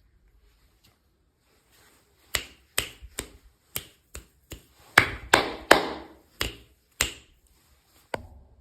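A run of about a dozen sharp clicks and taps from handling small hard pieces of miniature toys during unboxing. They start about two seconds in and are loudest in the middle.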